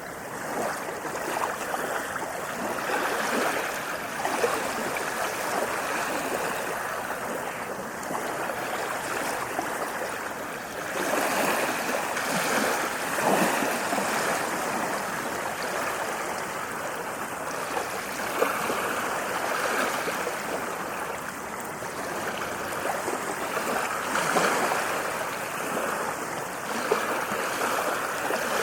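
Ocean waves washing on a shore: a continuous rush of surf that swells and eases every few seconds.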